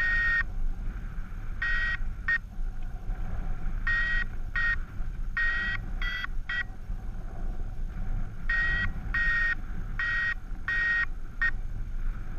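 Flight variometer beeping, about a dozen short and slightly longer tones at one pitch in irregular groups, a little higher about six seconds in, over steady wind rush on the microphone. The beeping signals that the paraglider is climbing in lift.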